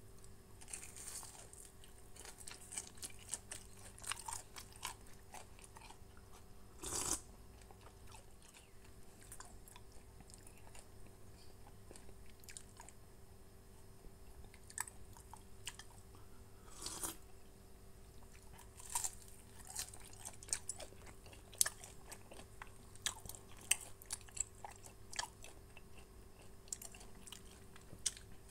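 Someone biting and chewing fried pempek dos dipped in cuko sauce: scattered small chewing clicks, with louder bites about seven and seventeen seconds in.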